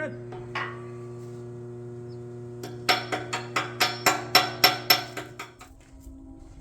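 About a dozen quick hammer strikes ringing on the freshly welded steel of a skid steer grapple jaw, about five a second, over the steady hum of the arc welder. The hum stops near the end.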